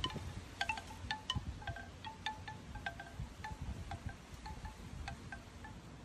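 Bamboo wind chime clacking in the breeze: its hollow tubes knock together in quick irregular strikes, each with a short hollow tone, growing sparser toward the end. Wind rumbles on the microphone underneath.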